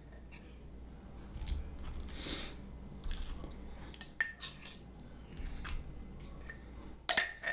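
A metal fork clicking and scraping against a nearly empty jar of cheese sauce, working the last of the sauce out onto the food, with a few louder clinks near the end.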